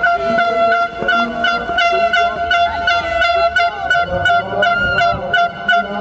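A horn held on one long steady note over a fast, even beat of percussion strokes, with crowd voices underneath: supporters making noise in the stands.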